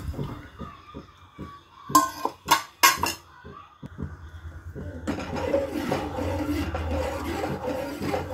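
Steel cookware clanking: a few sharp metal knocks about two to three seconds in as cooked toor dal is tipped from a steel pressure-cooker container into a steel pot. From about five seconds in, a steel ladle stirs the dal in the pot.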